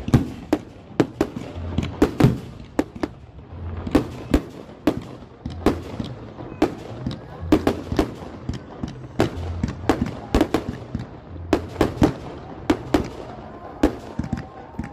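Fireworks display: aerial shells bursting in a rapid, irregular string of bangs and crackles, several a second.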